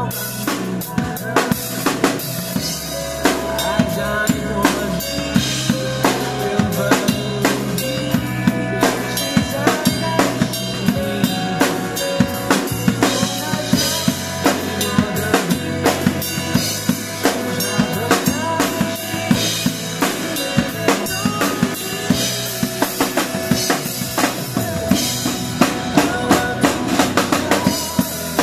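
Yamaha drum kit played live, with a busy groove of bass drum, snare and cymbal strokes over a recorded pop backing track with sustained chords.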